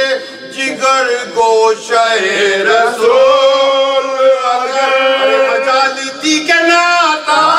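A man's unaccompanied voice chanting a mourning elegy (noha) in long held notes, with short breaks between phrases.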